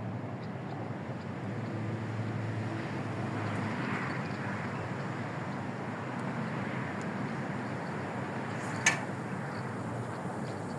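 Steady outdoor background noise with a low hum, and one sharp click about nine seconds in.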